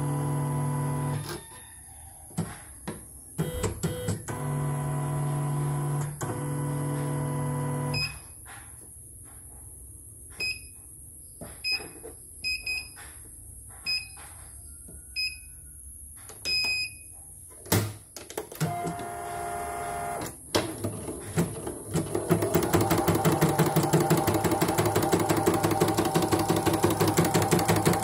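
CNY E900 embroidery machine being put through a test run: a steady motor hum in two spells, then about ten short touch-screen beeps as keys are pressed, and from about three-quarters of the way in the machine stitching with a rapid, even clatter.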